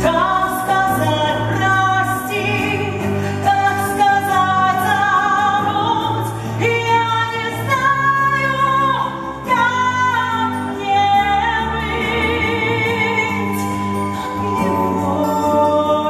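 A woman singing solo through a headset microphone, with long held notes and vibrato, over a sustained low accompaniment from the live stage band.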